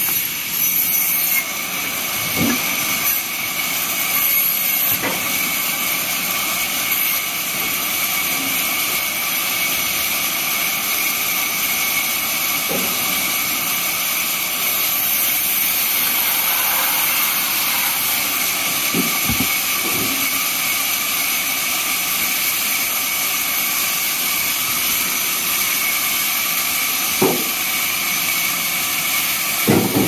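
Large vertical band saw running steadily with a constant high whine while a log is fed through the blade. A few short knocks break in, about five times, as the log is handled on the table.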